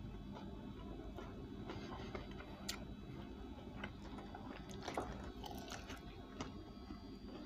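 Crispy fried chicken being torn apart by hand and bitten and chewed: scattered small crackles and clicks, with a couple of sharper ones near the middle. A faint steady hum sits underneath.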